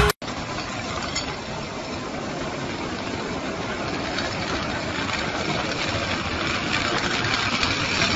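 Electric fire-hose rolling machine running steadily as it winds a flat fire hose onto its reel. The steady mechanical sound grows slowly louder as the reel fills.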